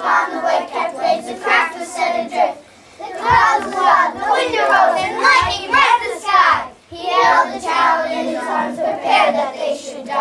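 A group of young children singing together in unison, in long phrases with short breaks about three and seven seconds in.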